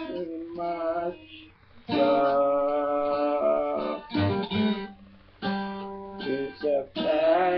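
Acoustic guitar in an unconventional tuning, strummed chords struck every second or two and left to ring out.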